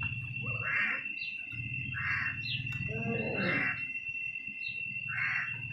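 Small birds chirping, short calls about once a second, over a constant high whine and a low steady hum.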